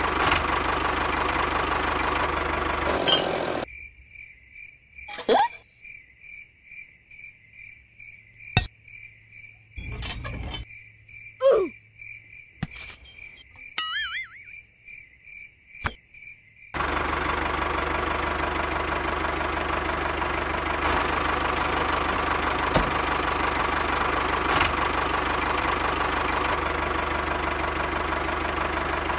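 Small electric motor and gears of a homemade toy tractor running steadily. About four seconds in the motor sound cuts out for a high, evenly pulsing chirp sound effect with a few clicks, pops and a wavy whistle, and the motor sound comes back about seventeen seconds in.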